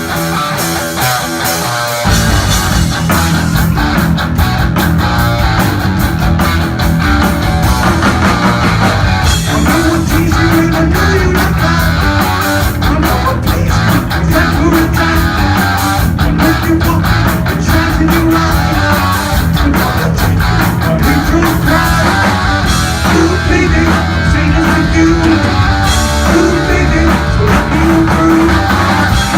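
Live heavy metal band playing a song's opening: an electric guitar riff alone, then drums and bass crashing in about two seconds in and the full band driving on at a steady rock beat.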